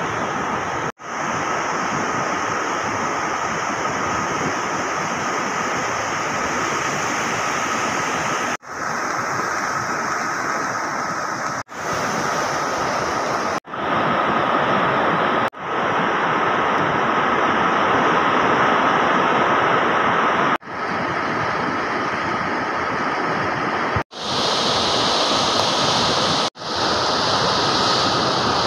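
Swollen, muddy river in flood rushing and churning past: a steady rushing noise of fast turbulent water, cut off briefly about eight times.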